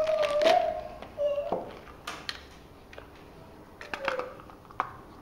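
A child's voice holds a note that fades out in the first second, then a few scattered sharp taps and clicks as small plastic-bagged camera mounts are handled on a table.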